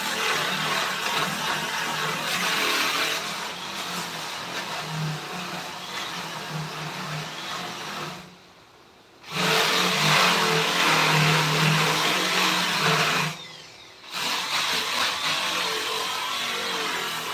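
A handheld power tool running steadily with a motor hum and a loud hiss. It stops for about a second roughly 8 seconds in, starts again, and cuts out once more briefly near the end.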